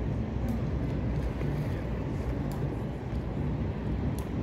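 Steady low engine hum of a river boat under way, with the wash of water along the hull, heard from aboard.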